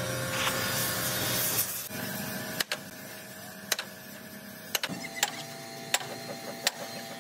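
A steady hiss with a low hum for about two seconds, then about six sharp knocks at uneven intervals.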